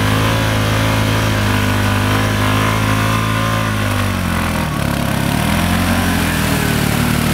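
ATV engine running at high revs while the quad is stuck deep in mud with its wheels spinning; the revs sag about four to five seconds in, then pick up again.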